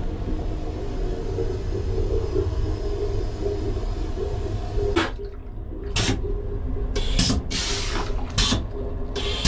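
Steady low rumble of a PESA Dart electric multiple unit running, heard from inside its onboard toilet cubicle. A hiss runs through the first few seconds, and about half a dozen short hissing bursts follow in the second half.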